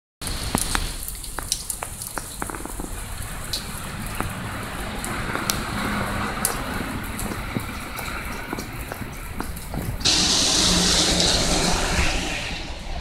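Steady rain with many sharp drips and drops landing close by. About ten seconds in, a louder hiss comes in suddenly and lasts a couple of seconds.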